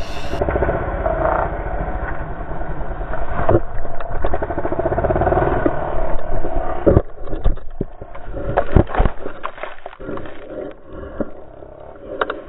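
Suzuki RM-Z450 dirt bike's single-cylinder four-stroke engine revving hard, then several sharp knocks and scrapes about seven to nine seconds in as the bike goes down on a dusty grass slope. The engine runs on more quietly afterwards.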